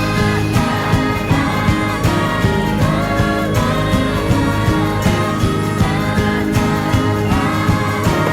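Background music with a steady beat and bright pitched melody lines.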